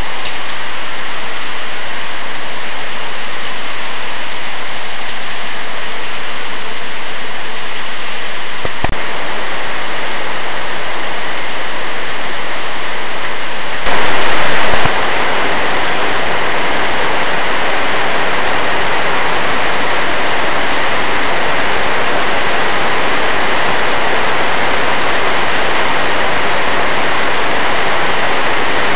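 Heavy rain pouring down steadily, a dense even rush. About 14 seconds in it turns suddenly louder and brighter, and a single faint click comes a little before that.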